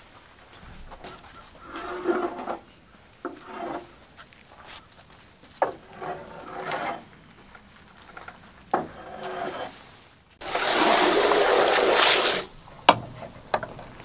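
Outdoor farm ambience: a steady high insect drone with several short animal calls scattered through it. A loud rush of noise lasting about two seconds comes in about ten seconds in.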